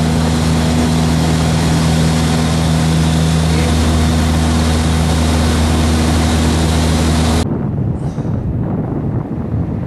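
Van's RV-8's piston engine and propeller running, heard from inside the cockpit as a loud, steady drone during aerobatic flight. About seven and a half seconds in it cuts off suddenly to gusting wind on the microphone.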